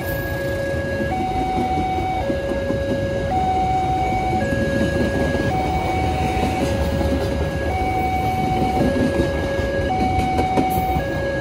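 Level-crossing warning siren sounding a two-tone alarm, alternating between a lower and a higher tone about once a second, over the rumble and clatter of passenger train carriages rolling past.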